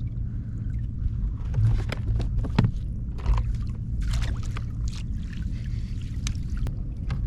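Water lapping against a kayak's hull, with wind rumble on the microphone. Several short knocks and splashes come between about one and a half and five seconds in.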